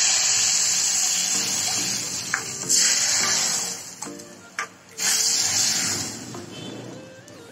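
Hot tadka (oil tempered with mustard seeds and chillies) sizzling as it meets cooked dal: three loud hisses, each fading over a second or two.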